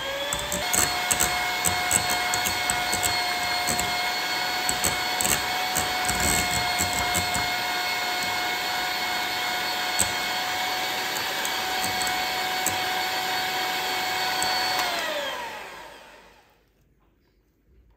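Electric mixer motor running steadily, stepping up in speed just after the start. About fifteen seconds in it is switched off, and its whine falls as it winds down to a stop.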